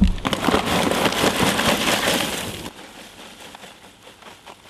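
A brown paper bag crinkling and dried willow (osier) pieces rustling and crackling as they are handled. After about two and a half seconds it drops to faint ticks while the pieces are tipped from the bag into a cauldron of water.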